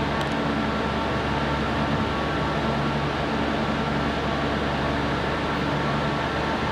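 A steady mechanical hum and whoosh with several steady tones in it, unchanging throughout, like a running fan or other machine.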